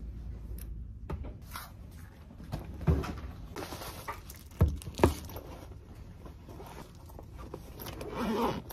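Rustling and knocking of belongings being packed into a canvas backpack on a table, with a few sharper thumps about three and five seconds in. Near the end the backpack's zipper starts to be pulled.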